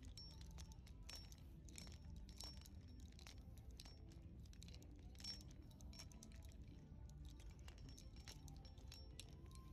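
Near silence: faint room tone with scattered light clicks and clinks.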